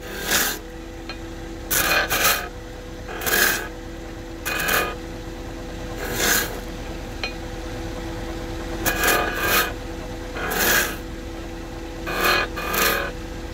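Wood lathe motor humming steadily while a tool is pressed to the spinning wood again and again. Each pass gives a short, raspy scrape, about a dozen times with uneven gaps, sometimes two in quick succession.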